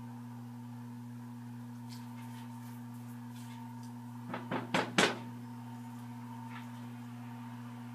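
A slotted serving spoon knocking four times in quick succession against the rim of a pot, the last knock loudest, to shake off cooked rice. A steady low hum runs underneath.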